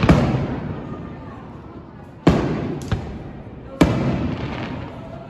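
Aerial fireworks shells bursting: four booms, right at the start, a little past two seconds, about three seconds and near four seconds in, each trailing off in a long echo lasting a second or more.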